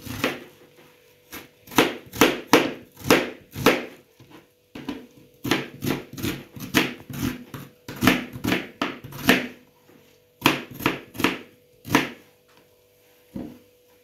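Kitchen knife slicing a peeled onion and knocking on a plastic cutting board: sharp knocks about two to three a second in runs, broken by a few short pauses, with fewer strokes near the end.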